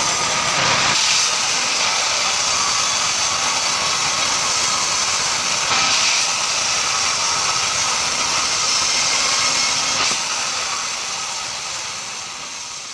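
Sawmill bandsaw cutting through marsawa timber, a steady high rushing noise with brief surges about a second in and around six seconds. It fades away over the last three seconds.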